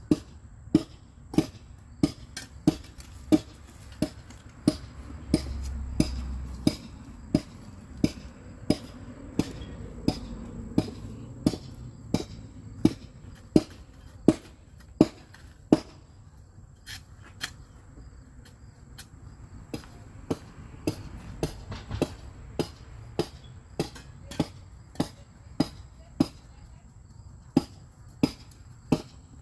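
Steady hammering on wood, sharp blows at about one and a half a second, with a brief pause a little past halfway.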